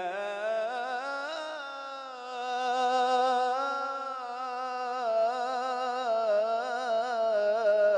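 A man singing an Islamic ibtihal (devotional supplication) unaccompanied, drawing out one long unbroken melismatic phrase with small rapid ornamental turns in pitch.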